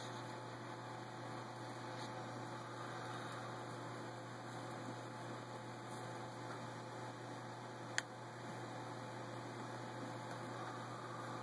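Steady low hum over faint hiss, with a single sharp click about eight seconds in.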